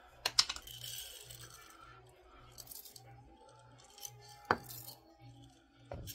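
Chocolate chips rattling in a glass jar and dropping into a ceramic mug as the jar is shaken out. There is a clatter just after the start and a single sharp clink a little past the middle.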